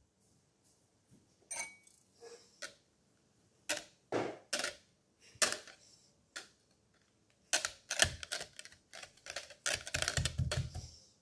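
Wire whisk stirring play sand in a plastic measuring jug: irregular clicks of the wires against the plastic and short crunchy scrapes through the sand, sparse at first and coming thick and fast in the last few seconds.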